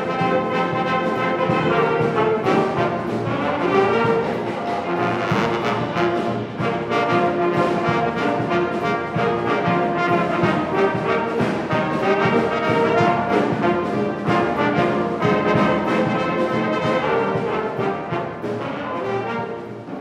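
Youth jazz big band playing, with saxophones and brass (trumpets, trombones) carrying the tune; the music fades out near the end.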